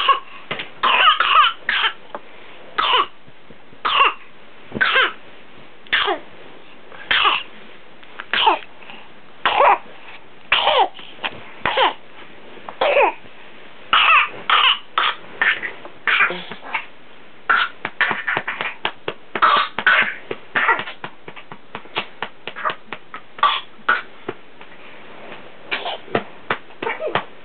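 A fit of repeated sharp coughs, about one a second, in short runs, the bursts getting smaller and quicker toward the end: a coughing episode suspected to be whooping cough (pertussis).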